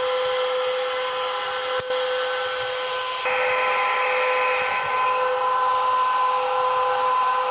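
Bitcoin mining machine's cooling fans running with a steady whine of several held tones over a rush of air. A single click about two seconds in, as a network cable latches into the miner's LAN port.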